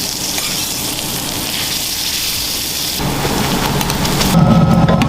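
Food frying with a steady, hissing sizzle. About three seconds in it cuts to a deeper, louder sound with a steady tone, loudest near the end.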